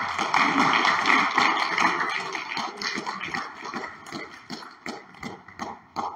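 Congregation applauding, loud at first, then thinning out into scattered claps and dying away.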